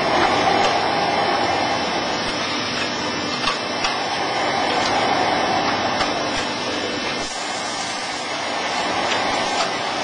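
Horizontal baler's motor and hydraulic pump running steadily with a whirring noise, with a few light clicks about three and a half seconds in.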